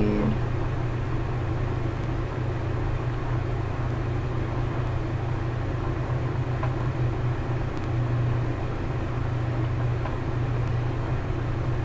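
Steady low background hum with no speech, with a couple of faint ticks.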